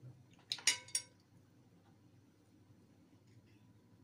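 A metal fork clinking against a plate three times in quick succession, about half a second to a second in, followed by quiet room tone.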